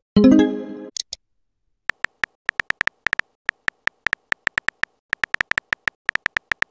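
A texting app's sound effects: a short message chime that fades over about a second near the start, then a steady run of keyboard tap clicks, several a second, as a message is typed.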